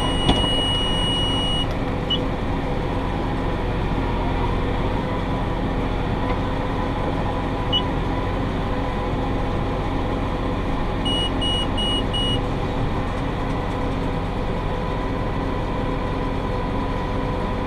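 Massey Ferguson 5610 tractor pulling a John Deere 468 round baler at high field speed: a steady engine and baler drone with even tones. A held electronic beep sounds at the start, and four short beeps come in a quick run about eleven seconds in.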